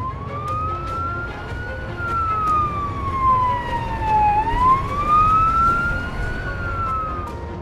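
A siren wailing: one tone that slides up over about two seconds, falls slowly, rises again and fades out near the end, over a low rumbling background.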